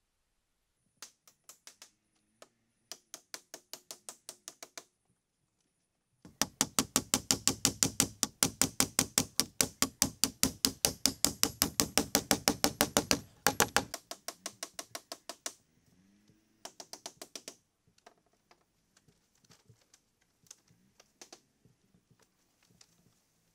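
Rapid, evenly spaced strikes of a hand tool on wood, about five a second. They come in short runs, with one long, loud run of about eight seconds in the middle, then trail off into scattered quieter knocks.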